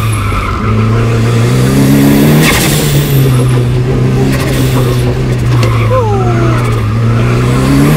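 Turbocharged 2.3-litre 4G63 four-cylinder of a 1992 Eagle Talon TSi AWD, heard from inside the cabin, driven hard on an autocross course. It climbs in pitch about two seconds in, drops back sharply, and climbs again near the end, with a brief falling squeal about six seconds in.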